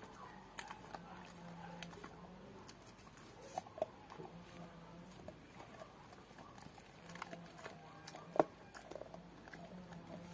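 Young Rottweiler chewing a pork bone: scattered cracks and crunches of teeth on bone with quieter gnawing between them, the loudest crack about two seconds before the end.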